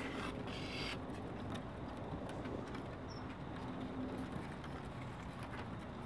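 Puppies scuffling on a wooden deck, their claws tapping in light clicks, with a brief crinkle of a plastic sheet about half a second in, over a steady low background rumble.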